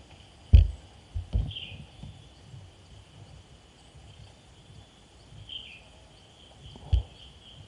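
Outdoor ambience: a steady high insect buzz with a few short falling chirps, broken by dull knocks as the scoped air rifle and its camera are handled, the loudest about half a second in, two more just after a second in and another near the end.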